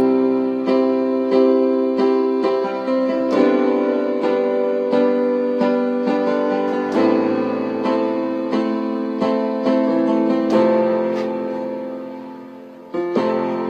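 Instrumental intro of a pop song: piano or electric piano playing steady repeated chords, fading down briefly near the end before starting again.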